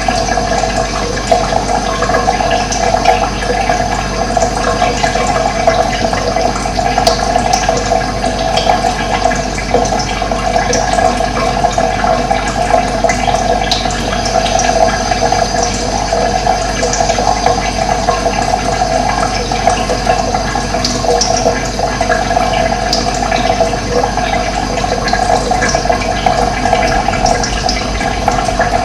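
Steady rushing of running water, with faint short bird chirps scattered through it.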